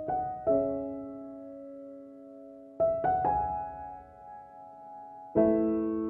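Slow solo piano background music: soft notes and chords struck every second or two and left to ring out.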